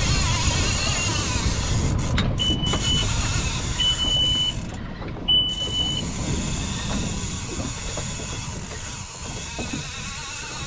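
Small boat under way at trolling speed: its 60 hp outboard motor running with wind and water rushing past the hull. Three short, high, steady beeps a little over a second apart sound in the middle.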